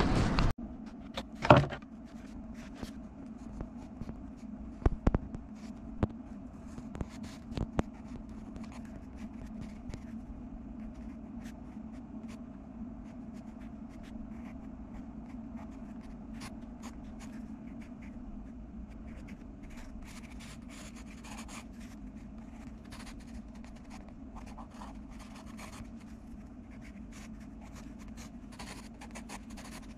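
Graphite pencil drawing on sketchbook paper: faint scratchy strokes that come more often in the second half, over a steady low hum. A rush of wind on the microphone cuts off half a second in. A few sharp knocks fall in the first eight seconds, the loudest about a second and a half in.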